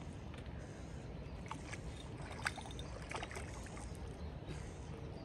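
Hooked carp splashing and thrashing at the surface as it is brought over a landing net: a few short splashes in the middle, the loudest about two and a half seconds in, over a steady low rumble.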